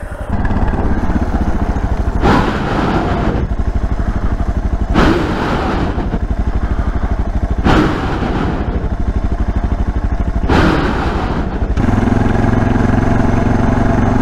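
Motorcycle engine running while under way, with a brief surge of noise about every three seconds. Near the end it settles into a steady, even drone.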